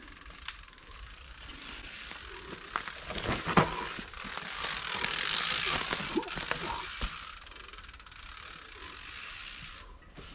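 Electric mountain bike climbing a steep trail through dry leaf litter: tyres crunching and rustling through the leaves, with sharp mechanical clicks and rattles from the bike. The sound is loudest about halfway through as the bike passes close by.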